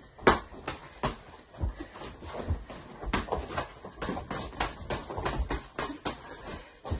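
Boxing gloves landing in quick, irregular punches against gloves, headgear and body during sparring. There are several sharp smacks a second, the loudest just after the start.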